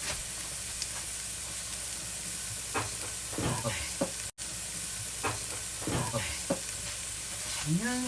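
Steady sizzling and crackling of food on a hot indoor electric grill, with faint muffled voice in the background and a brief dropout a little past the middle.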